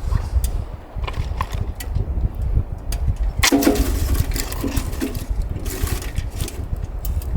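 Strong wind buffeting the microphone: a steady low rumble with scattered clicks, and a louder gust-like burst about three and a half seconds in.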